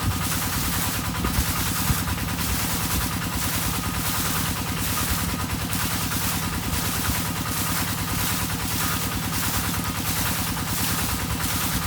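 Field water pump's engine running steadily, with frogs calling in a regular pulsing chorus about once a second.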